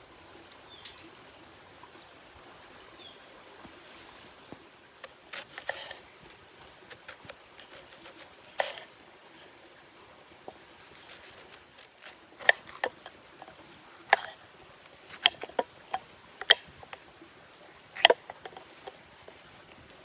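A series of sharp clicks and knocks at irregular intervals, a few in the first half, then louder and more frequent in the second half.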